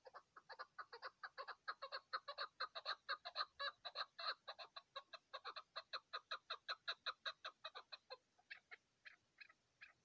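Chukar partridge calling: a fast run of short clucking chuck notes, about five or six a second. The run builds, then thins to a few scattered notes over the last two seconds.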